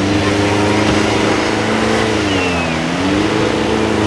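Off-road 4x4 truck's engine revving hard as it churns through a mud-and-water pit; the engine pitch sags about two-thirds of the way through and then climbs again.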